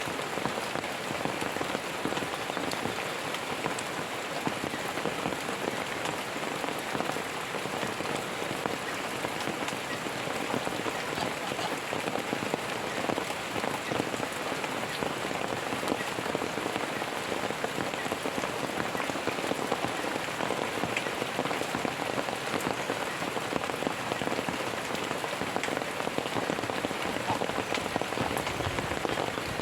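Steady rain falling, a dense, even patter of many drops with no thunder.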